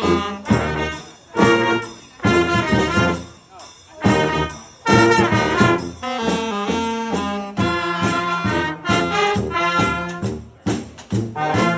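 Brass street band playing an instrumental cover of a rock song live, with trombones and trumpets carrying the tune in short rhythmic phrases broken by brief gaps.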